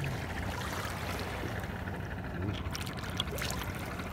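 Shallow seawater trickling and lapping as a hand reaches in and picks a clam off the sandy bottom, with a few light clicks about three seconds in.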